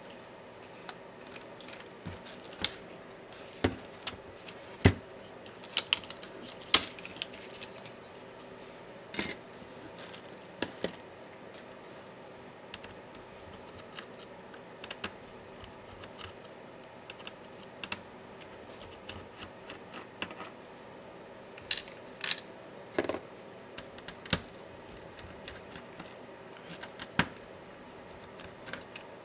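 Irregular clicks, taps and light scrapes of small hand tools and plastic and metal laptop parts being handled during disassembly, the sharpest clicks coming about five and seven seconds in and a burst of them about twenty-two seconds in, over a faint steady hum.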